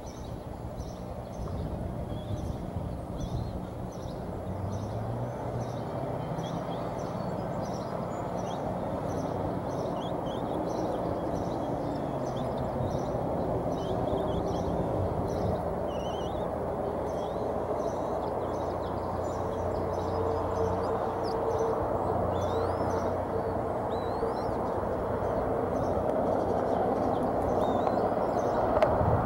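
Outdoor ambience: a steady low rumble that slowly grows louder, with faint high chirps repeating about twice a second and a few short rising peeps.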